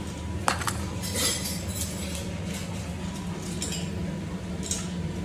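A metal dog bowl of dry kibble set down with a clink, then a puppy eating from it: scattered clicks of kibble against the steel bowl, over a steady low hum.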